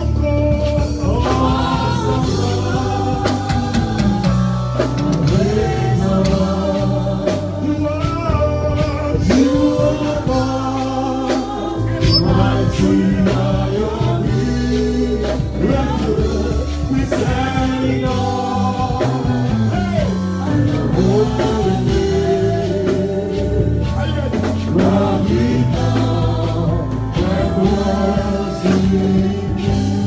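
Live gospel praise song: a lead singer on a microphone and a congregation singing together over a band with a steady bass.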